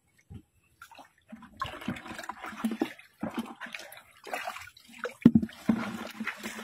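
Shallow muddy water sloshing and splashing as hands grope in a mud burrow under the water. It is irregular, starts about a second and a half in, and has one sharp splash a little past five seconds.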